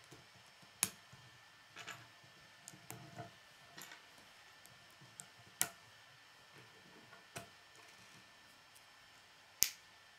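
K'nex plastic rods and connectors clicking and snapping together by hand, a scatter of small clicks with three louder sharp clacks about a second in, near the middle and near the end. The plastic model's feet also tap on a wooden tabletop.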